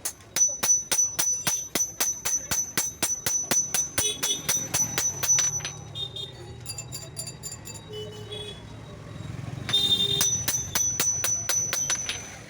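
Rapid hammer blows on steel at a blacksmith's anvil, about three or four a second, each with a high metallic ring. They stop about six seconds in and start again near ten seconds.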